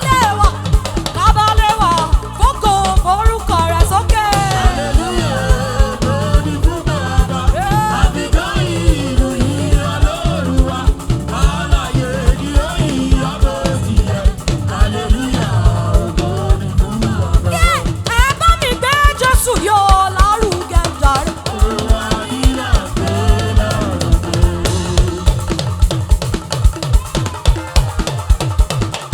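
Live praise-band music: a drum kit keeping a steady beat of kick and snare under a sliding melodic line.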